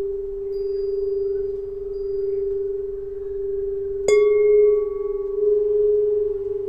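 Solfeggio tuning pipes, tuned metal tubes, ringing. One steady pure tone sustains with a slow waver, then about four seconds in another pipe is struck with a sharp metallic ping, the loudest moment, and a slightly higher tone rings on.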